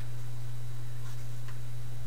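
Steady low electrical hum of the recording, with two faint clicks about a second in.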